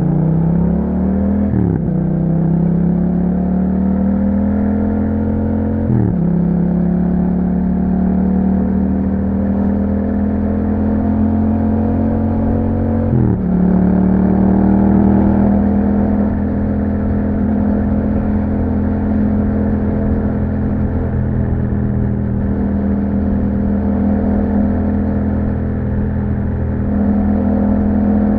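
Yamaha MT-07's parallel-twin engine, breathing through an Akrapovic exhaust with dB killers fitted, accelerating through the gears: the engine note climbs, drops sharply at three upshifts, then settles into a steady cruise with a slight rise near the end.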